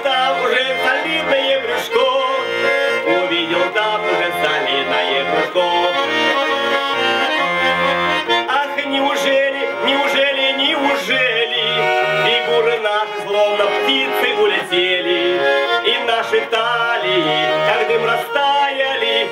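Garmon (Russian button accordion) playing an instrumental interlude: a busy reedy melody over a steady on-the-beat bass-and-chord accompaniment.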